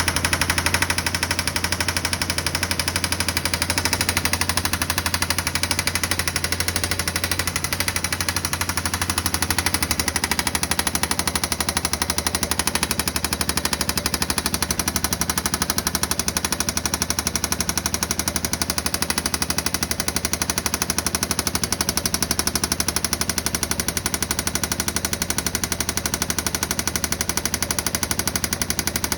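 2016 Yamaha Viking side-by-side's 686 cc single-cylinder engine running with a steady, rapid knock, a fault whose cause the owner does not know.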